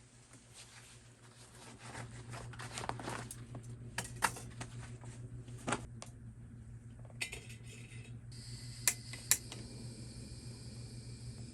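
Dishes and cutlery clinking and knocking in a series of sharp, separate clinks, over a steady low hum.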